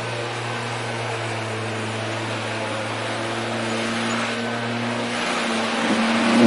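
Lawn mower engine running steadily, growing louder and rougher near the end.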